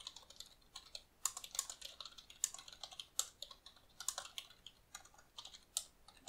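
Typing on a computer keyboard: quick, uneven runs of keystrokes with short pauses between them.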